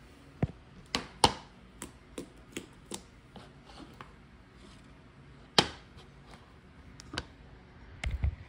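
A series of irregular sharp clicks and taps, spaced unevenly, two of them much louder than the rest. Near the end come a few low thumps of handling noise on the microphone.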